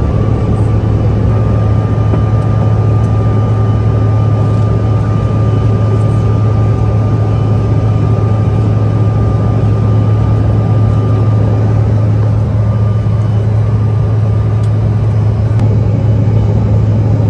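Airliner cabin noise during takeoff and climb: the engines' steady loud drone with a deep hum underneath and a thin steady whine that fades out about three-quarters of the way through.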